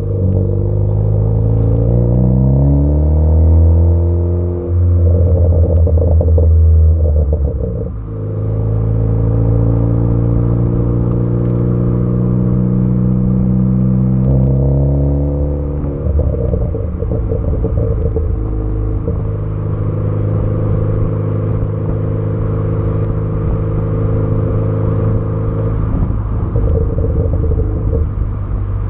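Tuned, turbocharged Ford Focus ST engine and exhaust being revved: the pitch climbs over the first few seconds and is held, drops back, then rises and falls once more before settling lower. Crackling pops come through the exhaust during the high-rev stretches and the drops.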